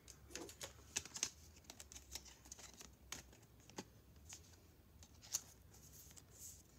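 Faint, irregular clicks and light rustles of Pokémon trading cards being handled and shifted in the hand.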